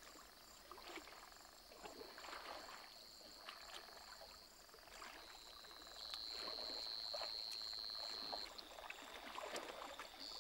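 Lions wading through shallow floodwater: faint, irregular sloshes and splashes of water. Behind them runs a steady high-pitched trill that grows louder for a couple of seconds midway.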